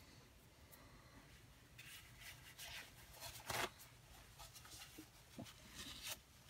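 Faint rustling and rubbing of paper as a tissue wipes excess liquid glue off a photo on a scrapbook page, with one short, sharper sound about three and a half seconds in.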